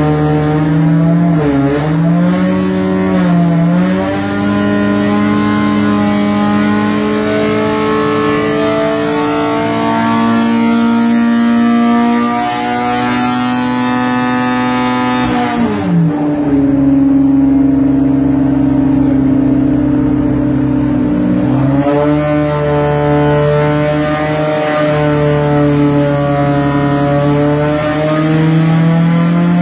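A 1293 cc A-series Mini racing engine on twin H4 carburettors runs on an engine dyno, heard through the test cell's glass. The revs climb slowly for about ten seconds, fall sharply about halfway through, run lower for several seconds, then dip and climb again.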